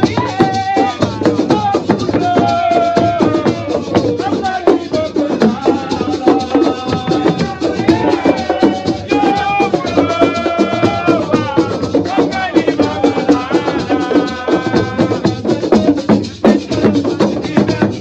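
A young man singing in long, wavering held notes over live hand drums and fast rattling percussion.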